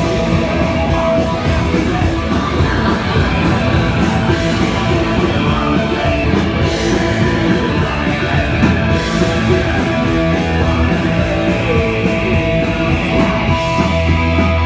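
Punk rock band playing live and loud: electric guitars, bass and fast, steady drums. Near the end a guitar holds a sustained note over the band.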